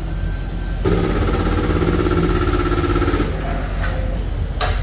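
An air-powered shop tool runs in one steady, rapid burst of about two and a half seconds, starting about a second in. A short sharp clank comes near the end.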